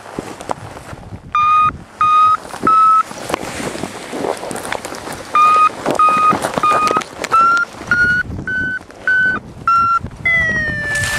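Paragliding variometer beeping: three short beeps, a pause, then a run of beeps that climb in pitch and come faster, the vario's signal that the glider is climbing in lift. It ends in a longer, slightly falling tone, over wind rushing past the microphone.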